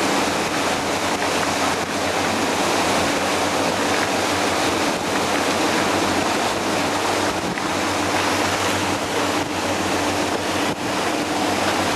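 Speed boat running at speed: a steady rush of water and wind along the hull, with the low hum of its engine underneath.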